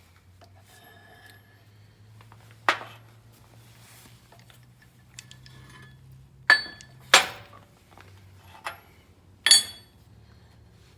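Small machined metal mold blocks and pins clinking as they are handled and set down at a press: five sharp metallic clinks with a short ring, two of them close together about halfway through, over a low steady hum.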